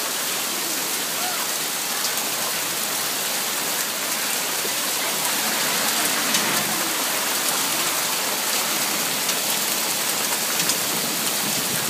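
Hard rain mixed with hail pouring down steadily, a dense hiss with fine patter of stones striking surfaces.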